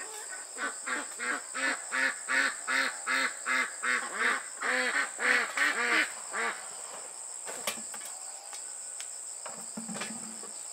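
Domestic waterfowl honking in a rapid run of about three calls a second, fading out after six or seven seconds, over a steady high insect drone.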